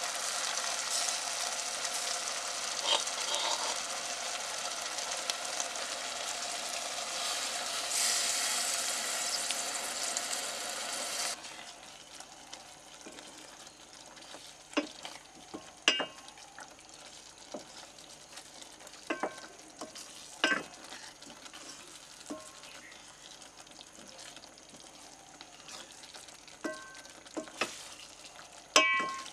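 Marinated chicken frying in a stainless-steel pot, with a loud, steady sizzle that cuts off suddenly a little over a third of the way in. After that, a quieter sizzle of the curry as a spatula scrapes and knocks against the pot several times.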